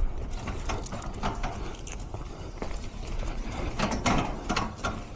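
Irregular metallic rattling and clicking from the old, gutted air handler cabinet being hauled out.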